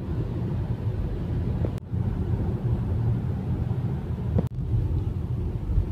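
Steady low road rumble of a car driving, heard from inside the cabin, broken by two brief dropouts.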